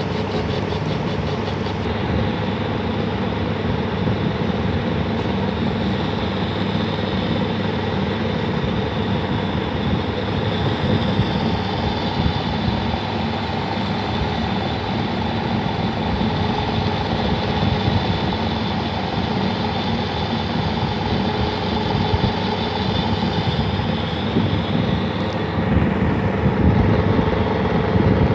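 Lathe running steadily while a taper is turned on the workpiece, the cutting tool fed by hand on the compound slide. It is a constant motor hum with a steady higher tone from the cut and a few brief louder scrapes.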